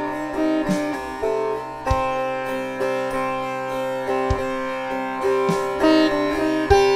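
Background instrumental music in an Indian classical style: a plucked string melody with sliding notes over a steady drone, with a low drum stroke about every two and a half seconds.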